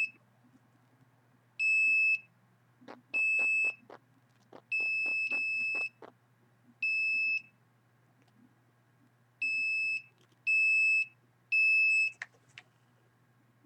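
Handheld signal detector beeping in short high-pitched bursts of about half a second, eight times at irregular spacing, with runs of rapid clicks twice near the middle. The owner takes it to be picking up signals from a nearby computer. A faint low hum runs underneath.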